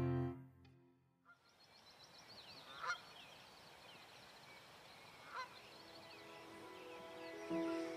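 A goose honking twice, about two and a half seconds apart, over faint twittering of small birds.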